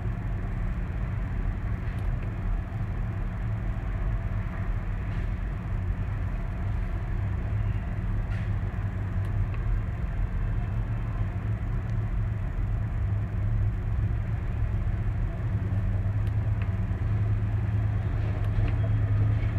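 Caterpillar E-series excavator's diesel engine idling steadily, heard from inside the cab as an even low rumble.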